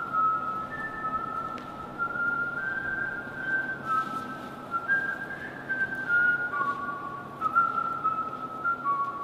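A person whistling a slow melody, single held notes stepping up and down in pitch.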